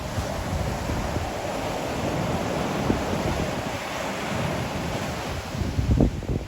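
Ocean waves breaking and washing up the shore, a broad rushing wash that builds through the middle. Wind buffets the microphone in low rumbles, strongest near the end.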